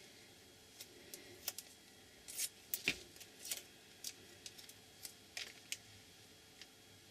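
Faint, scattered light clicks and a few short scratchy rustles of craft materials being handled, such as washi tape and paper.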